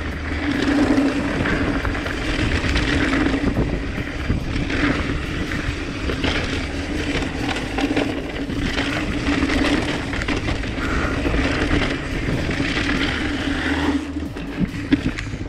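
Mountain bike descending a dirt singletrack, heard from a chest-mounted GoPro: a continuous rush of wind and tyre noise over dirt, with the bike's rattles and clicks over bumps and a steady low hum. A few sharper knocks near the end as it hits rougher ground.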